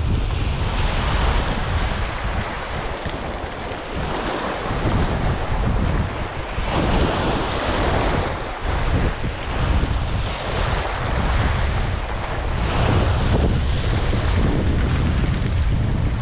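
Small sea waves breaking and washing up the shore in surges every few seconds, over a steady rumble of wind buffeting the microphone.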